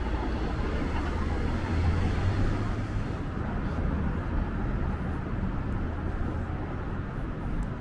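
City street ambience with traffic: a steady low rumble of cars and road noise, which eases slightly about three seconds in.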